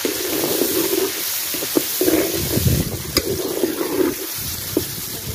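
Sliced onions, green chillies and tomatoes sizzling in hot ghee in an aluminium pot, stirred with a metal slotted spoon that scrapes and clicks against the pot a few times. A gust of wind rumbles on the microphone about halfway through.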